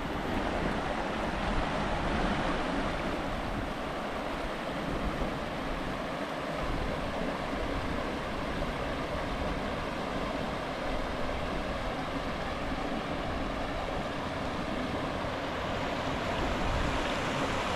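Shallow creek rapids: water rushing steadily over rocks, with wind buffeting the microphone in an uneven low rumble.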